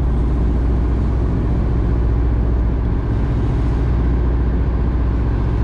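A fishing boat's engine running steadily: a low, even drone.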